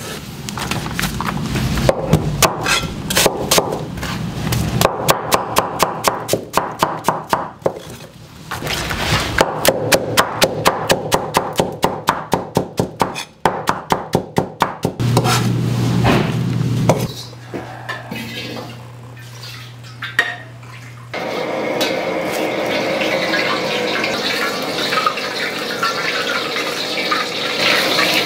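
Knife chopping onion and green onions on a plastic cutting board, in runs of rapid even strokes at about five a second with short pauses. About 21 seconds in a steady rushing noise starts: a gas wok burner running on a high flame.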